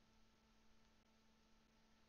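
Near silence: faint room tone with a low electrical hum.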